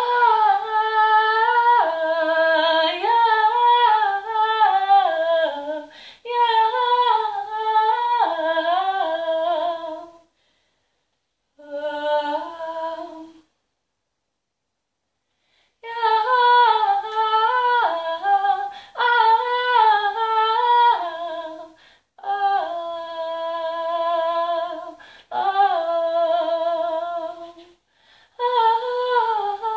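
A woman singing an improvised wordless vocal line in long phrases of held, shifting notes, with a pause of about two seconds midway.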